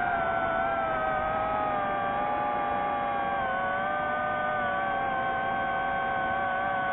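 DJI FPV drone's four motors and propellers whining steadily in flight, their several close pitches drifting slightly up and down as the throttle changes.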